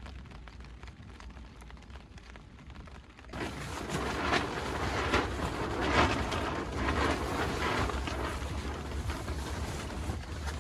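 Rain falling in a steady hiss, quieter for the first three seconds, then suddenly louder, with swelling surges.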